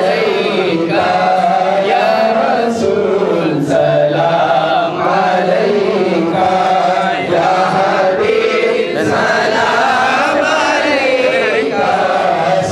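Several voices chanting together in a continuous devotional chant, with a slow, wavering melody.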